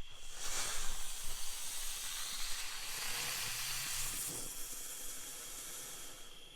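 Ground bloom flower firework spinning on the ground and spraying sparks: a loud, steady, high rushing hiss that starts abruptly about half a second in, eases slightly and cuts off near the end.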